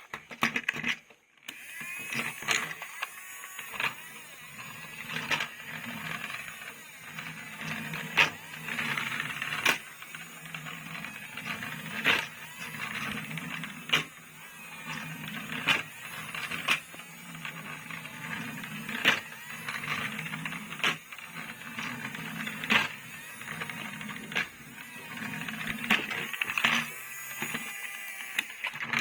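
Clicks and clacks about every one to two seconds over a soft rustling hiss: plastic toy vehicles being handled and unpacked.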